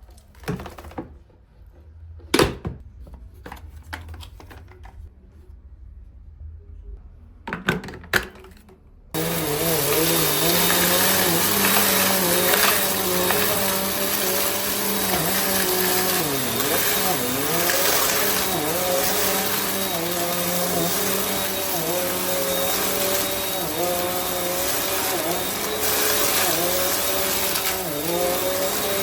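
A few handling knocks and clicks, then about nine seconds in a Bissell CleanView compact vacuum cleaner's motor switches on and runs loud and steady, its pitch dipping briefly now and then.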